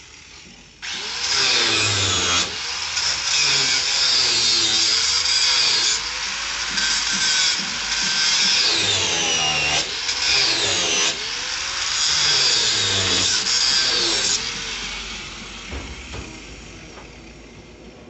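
Corded electric angle grinder starting up about a second in and grinding against the rusty metal edge of a lid. Its load shifts with brief dips and sweeping high whines as the disc bites. Near the end it is switched off and winds down.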